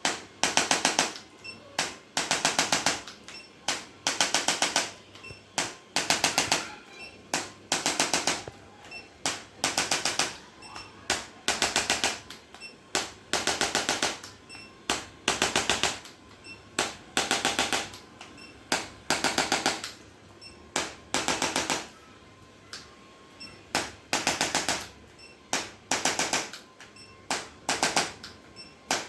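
Rapid mechanical tapping from an electric percussive chiropractic instrument, fired in short bursts of many quick taps. Each burst lasts about half a second to a second, and they repeat every second or so with brief pauses.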